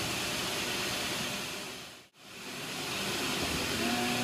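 CNC machining centre drilling a part under flood coolant: a steady hiss of coolant spraying and splashing inside the machine enclosure. It drops away briefly about halfway through, then comes back.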